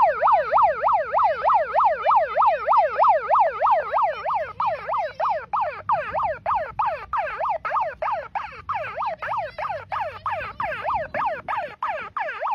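Siren in yelp mode: a fast rising-and-falling wail repeating about three to four times a second.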